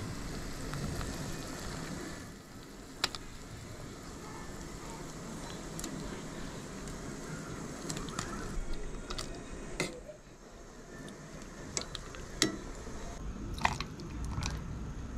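Steady hiss of a gas burner under a pot of fish soup simmering, with scattered light clicks and knocks from handling in the kitchen.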